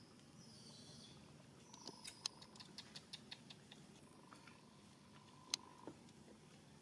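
Near silence: faint outdoor background with a few high chirps, then a short run of quick clicks and a single sharper click.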